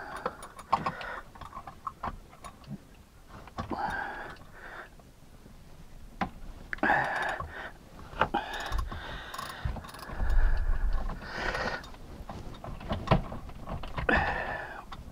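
Ratchet wrench clicking in short runs, with metal tool clinks and a few dull knocks, as a socket on the oil filter of a Kawasaki STX-15F jet ski's engine is worked to break the filter loose.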